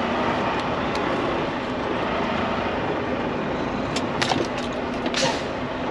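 A 2022 Volvo VNL 760 semi truck's diesel engine running at low speed with a steady hum as the truck creeps along, heard from inside the cab. A few short clicks and a brief hiss come near the end.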